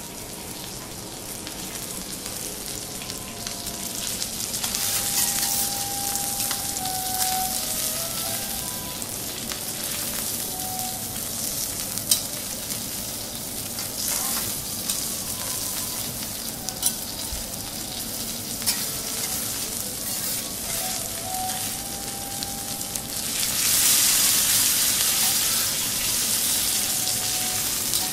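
Thick block of Akita beef sizzling steadily on a hot teppanyaki steel griddle, its juices frying on the plate. A few sharp clicks of the metal spatula and fork on the griddle are heard. The sizzle swells louder for the last few seconds.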